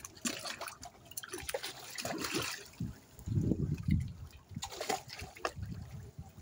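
Water splashing and sloshing as tarpon swirl and break the surface beside a dock, with crackly splashes in a cluster near the start and again about five seconds in. Bouts of low rumble come and go underneath.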